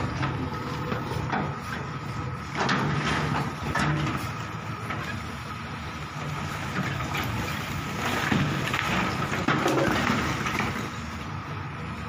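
JCB backhoe loader's diesel engine running under load while its backhoe bucket breaks down a brick wall, with bursts of crunching, crumbling masonry about two and a half seconds in, near four seconds, and again around eight to ten seconds.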